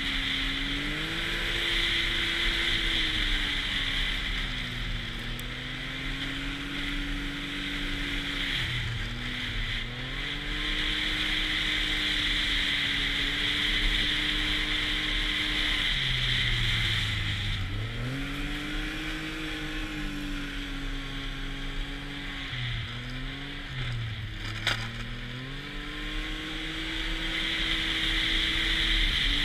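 Snowmobile engine running under the rider, its pitch rising and falling several times as the throttle is opened and eased off, over a steady hiss from the track and wind. A single sharp click comes near the end.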